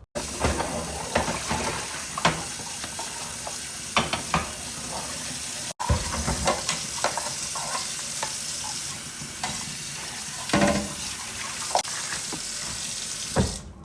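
Kitchen food-preparation sounds for a smoothie: a steady hiss with frequent clinks and knocks of utensils and containers, breaking off abruptly about six seconds in.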